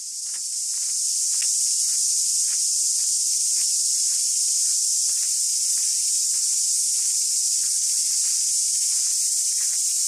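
Dense insect chorus: a steady, high-pitched buzzing hiss that fades in over the first second and then holds, with many faint short ticks scattered through it.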